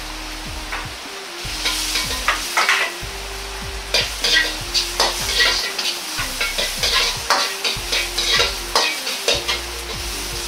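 A metal ladle scraping and clanking against an iron wok as julienned carrots and ginger are stir-fried in oil, over a steady sizzle. The quick strokes begin about a second and a half in.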